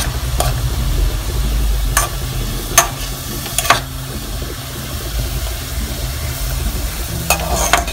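Chopped onions and garlic frying in oil in an aluminium pot, stirred with a metal spoon that scrapes and knocks against the pot several times, over a steady low hum.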